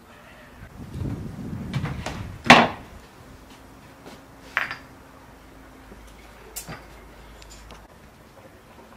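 Hard objects being handled and set down: a low scraping rumble, then a loud sharp knock about two and a half seconds in, and two lighter knocks later.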